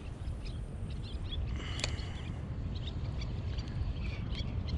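Birds calling with many short, scattered chirps, one louder call about two seconds in, over a steady low rumble.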